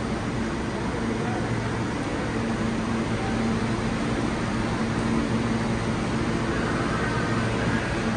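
New York City subway train standing at the platform with its doors open, its air-conditioning and onboard equipment giving a steady hum over a constant wash of noise.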